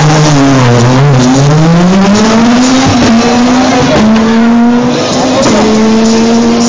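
Skoda Fabia S2000 rally car's two-litre four-cylinder engine running hard: revs dip and climb in the first few seconds, then hold fairly level with short drops at gear changes.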